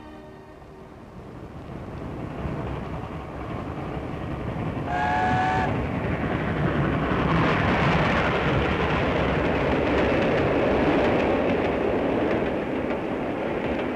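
A streamlined LNER A4 steam locomotive and its express train approaching at speed and passing close by. The train noise grows over the first five seconds, a short chime whistle sounds about five seconds in, and then the coaches go by with a loud, steady rush of wheels on rail.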